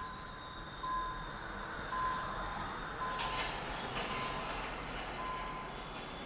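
An electronic beeper sounding one tone about once a second, with a car passing by about three to four seconds in.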